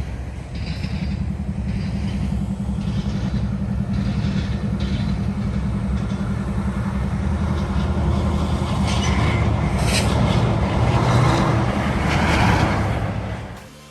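A train passing close by: a diesel locomotive engine runs steady and grows louder. Clattering and squealing wheel-on-rail noise builds toward the end, then the sound cuts off abruptly.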